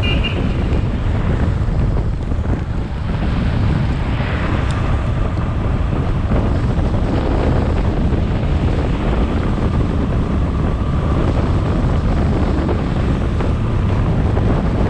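Steady wind rush buffeting the microphone on a moving motorcycle, with the bike's engine and road noise underneath.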